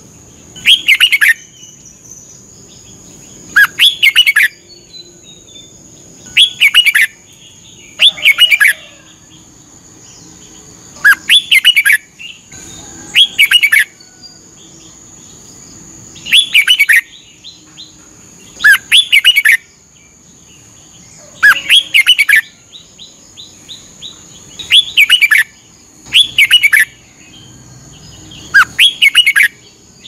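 Red-whiskered bulbul singing short phrases, each about half a second long, repeated every two seconds or so, with a few faint short notes between them.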